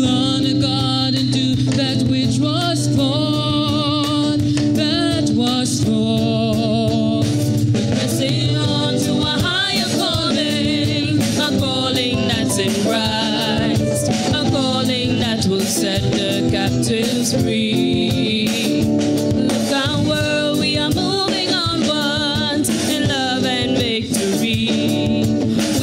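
A mixed group of men and women singing a gospel song into microphones, over instrumental accompaniment with drums.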